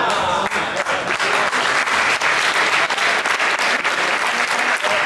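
Audience applauding: a dense, even patter of many hands clapping, building up within the first half second and carrying on steadily.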